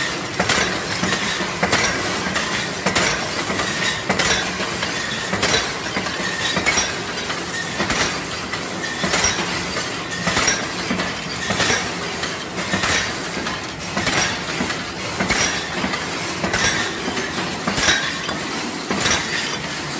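Metal lathe running and cutting steel with coolant spraying: steady machine noise with frequent sharp clinks.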